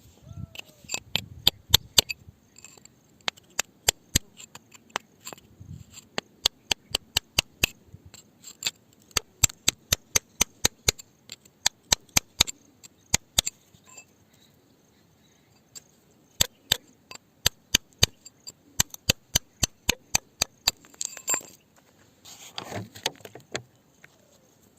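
Rapid, sharp taps of a hand tool striking rock, many strikes a second in irregular runs with a pause about midway, then a brief scraping rustle near the end.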